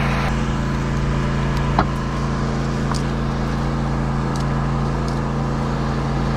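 An engine running steadily with a low, even hum, and a few faint clicks over it.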